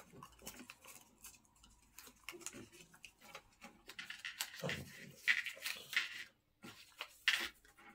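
Quiet eating sounds: fingers working soft dough and chewing, with small clicks and smacks. About four and a half seconds in, a short low vocal murmur.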